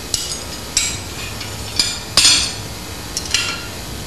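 Steel blacksmith's tongs clinking against each other and the anvil as they are handled. Several sharp metallic clinks with a short ring, the loudest about two seconds in.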